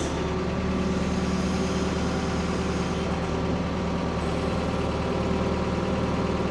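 Ford P-42 excavator's engine running steadily with a low, even hum.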